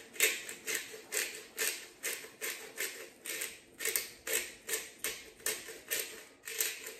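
Hand-twisted pepper grinder grinding black peppercorns: a run of short rasping crunches, about two twists a second.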